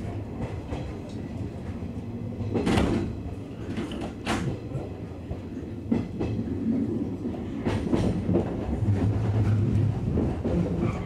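JR West 103 series electric train heard from inside the driver's cab as it pulls away, with a steady low running hum. Its wheels knock sharply over rail joints and points at irregular intervals, about five or six times.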